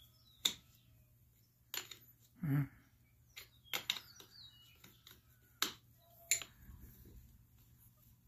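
Sharp metallic clicks of a combination wrench on a battery cable clamp nut as it is turned, about six separate clicks spread over several seconds. A short low vocal sound comes about two and a half seconds in.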